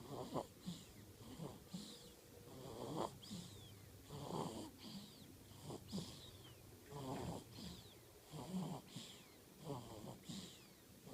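Snoring: quick, regular snores about every second and a half, each with a faint whistling wheeze.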